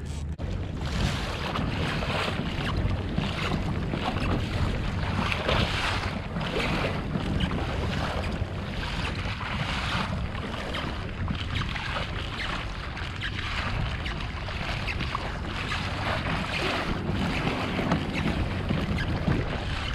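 Water splashing and rushing along the hull of a moving sit-on-top fishing kayak, in irregular surges, with wind buffeting the microphone.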